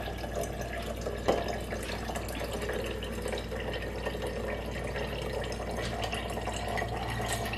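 A thin stream of cold brew coffee concentrate trickling steadily from a French press spout into a glass mason jar, with one light knock about a second in.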